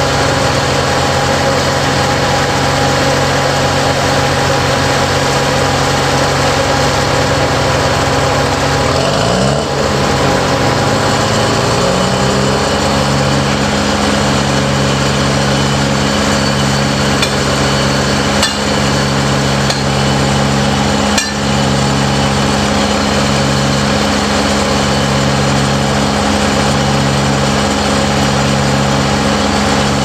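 Crane's diesel engine running steadily while it lifts steel piles; about ten seconds in the revs rise and then hold higher with a slow, regular throb.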